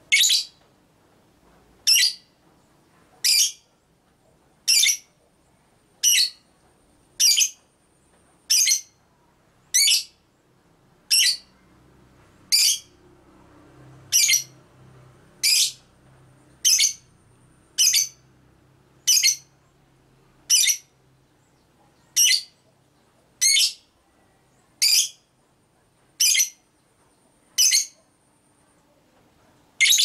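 Lovebird giving short, shrill single calls over and over, one about every second and a half at an even pace.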